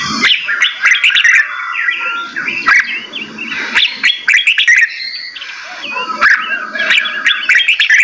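Several caged songbirds chirping and calling over one another in a dense chorus of short whistles and quick rising and falling notes, with sharp ticks mixed in.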